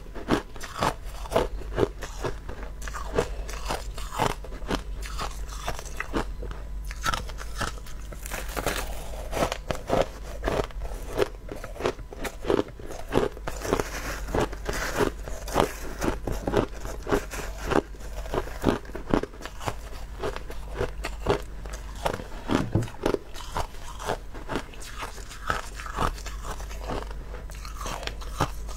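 Crushed ice being bitten and chewed: a steady run of crisp crunches, several a second.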